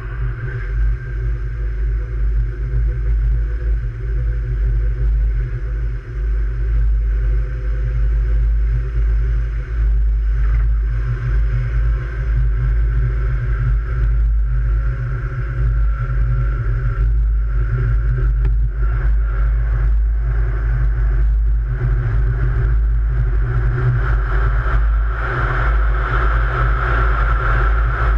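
Light-rail train running along its track: a loud steady rumble with a faint higher whine that grows louder near the end.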